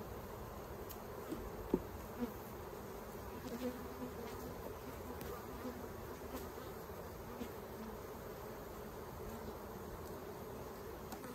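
Honeybees buzzing steadily around an open hive, a low even hum. A few short sharp knocks of wooden frames and the hive tool being handled, the loudest about two seconds in.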